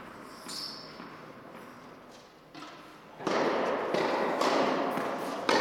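Tennis ball knocks off racket strings and court in a large indoor hall, faint at first. About three seconds in a loud, steady rushing noise comes up and covers them, and a sharp hit cracks out near the end.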